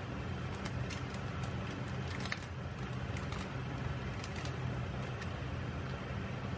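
Canned tuna frying in oil in a pan, with scattered sharp crackles and pops of sizzling over a steady low hum.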